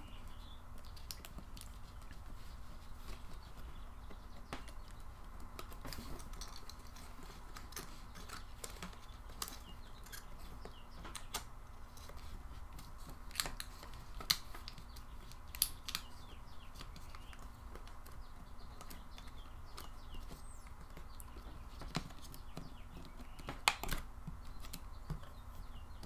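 Sparse small clicks and taps as ribbon-cable connectors are pressed and snapped into place on a 2012 Nexus 7 tablet's circuit board, over a faint steady hum.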